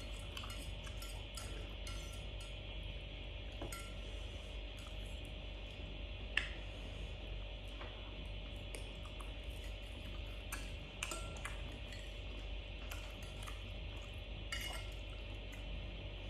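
Metal fork and spoon clinking and scraping against a glass bowl while eating noodles, with many small scattered clicks and one sharper clink about six seconds in. A steady hum runs underneath.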